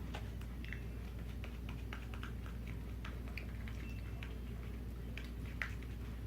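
Fluffy slime being squished and stretched by hand, giving many small sticky clicks and crackles at an irregular pace, over a steady low hum.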